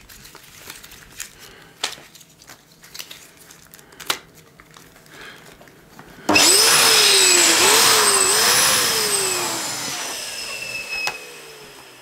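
Small handling clicks and rustles as a balloon is fitted, then about six seconds in an electric balloon pump switches on with a sudden loud whir, inflating a latex LED balloon. Its pitch wavers up and down a few times, then slowly falls as the sound fades.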